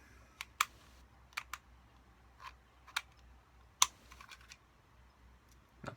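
Scattered sharp clicks and taps of scissor tips working a retaining pin out of an airsoft pistol's frame, the loudest a little under four seconds in.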